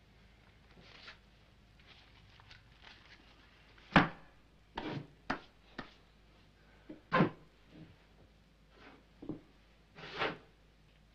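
Scattered short wooden knocks and thuds of old books being pulled from and shifted on a wooden bookshelf, the sharpest knock about four seconds in.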